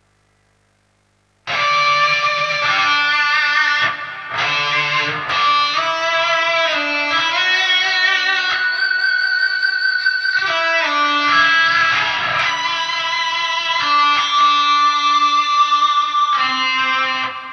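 Near silence, then about a second and a half in an electric guitar with a high-gain lead tone starts playing a melodic line of sustained notes, one held long in the middle, fading out at the end. It is played through a hum extractor and a Decimator G noise gate.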